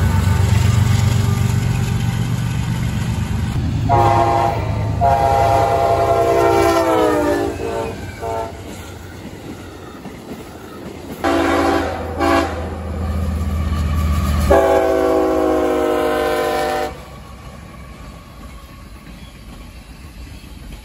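Freight diesel locomotives passing with a steady low rumble, and a multi-note horn blowing several blasts; the pitch of one long blast drops as the locomotive goes by, and the last long blast ends sharply about 17 seconds in.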